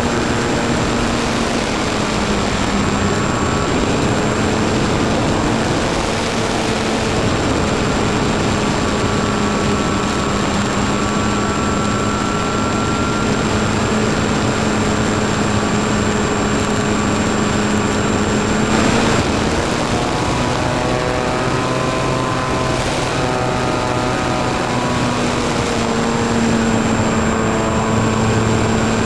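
Radio-controlled model aircraft's motor and propeller running steadily, heard from on board over a constant rush of air. The pitch dips and rises a little as the throttle changes, lower around the middle and higher again near the end. A faint steady high whine runs underneath.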